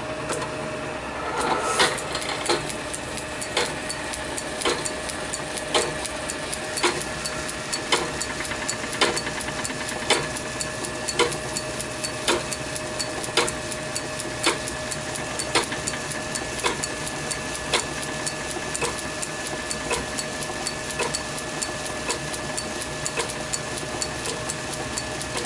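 Lorch toolroom lathe running while an 8 mm spotting drill in the tailstock chuck drills through the new bush in the spindle nose: a steady machine hum with a sharp click repeating about once a second.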